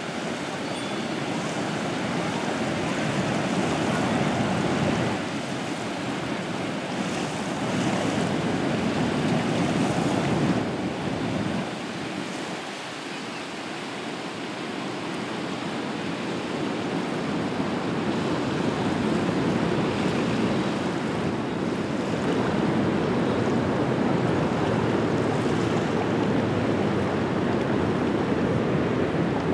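Wollondilly River in flood, about 5 metres above normal and still rising: fast brown floodwater churning into whitewater with a steady rushing noise that swells and eases a little.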